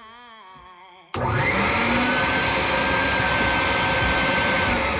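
Bucket-top wet/dry shop vacuum switched on about a second in: its motor whine rises as it spins up, then runs loud and steady under a rush of air, the whine dropping in pitch near the end.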